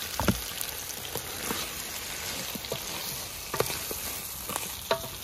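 Pieces of stew beef sizzling as they fry in a hot pot, a steady hiss with a few scattered knocks and crackles.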